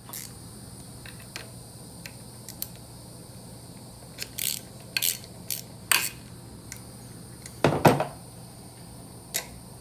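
Metal clinks and clicks of an aftermarket shifter and its adjustable shift mount being handled and repositioned, with a heavier clunk about three-quarters of the way through.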